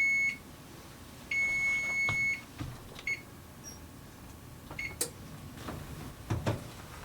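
Electronic oven timer beeping: the tail of one long beep, then a second long steady beep about a second in, signalling the cake's baking time is up. Two short beeps follow, like control-panel key presses, then a couple of knocks near the end.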